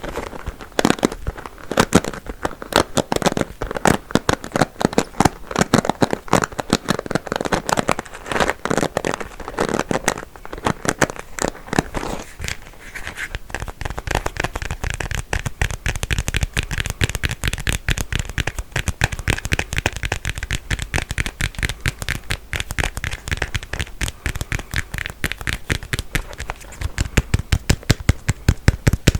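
Combs handled close to the microphone, their teeth clicking in quick succession. The clicks are irregular, mixed with rubbing, in the first half, then turn into a fast, even run of sharp ticks from about halfway on.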